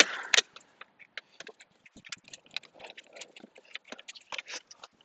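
Irregular clicks, taps and light scrapes of hands and tools working on the plastic front bumper and trim of an Audi TT, with two sharp clicks right at the start.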